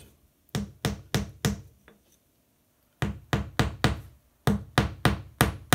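Small hammer striking the head of a nail to drive it into the end of a wooden dowel for a tool handle. Sharp taps come in three quick runs, three or four blows a second, with short pauses between runs.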